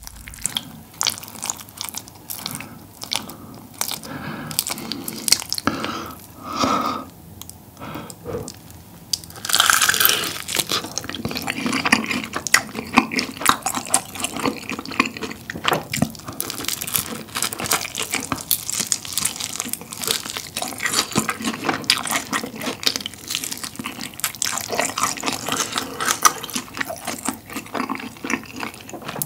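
Close-miked eating: crisp fried chicken coated in spicy tteokbokki sauce being bitten and chewed, with dense crackling crunches. The crunching is sparser at first and thickens from about ten seconds in.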